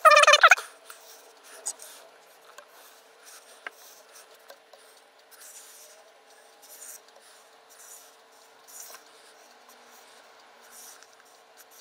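Height gauge scriber scratching layout lines onto blued metal cylinder blocks: a short, loud squeal at the start, then a series of faint, light scraping strokes.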